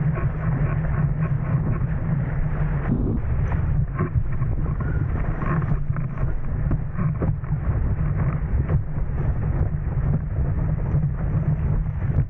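Wind buffeting an Insta360 action camera's microphone on a windsurfer planing at speed: a steady deep rumble, with the hiss of water and frequent short slaps as the board skips over chop.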